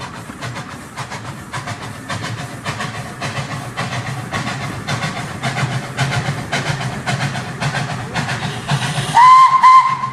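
Model tram locomotive and its train running over model railway track: a steady motor hum with rapid clicking of wheels over rail joints, growing louder as it approaches. Near the end a locomotive whistle sounds, two short toots running into a longer one, louder than the running.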